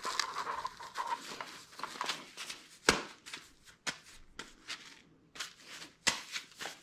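Dry rice grains rustling and clicking as they are poured and pushed by hand through a narrow opening into a small shooting-rest bag. The sounds are irregular and start and stop, with a sharper click about three seconds in and a brief lull a couple of seconds later.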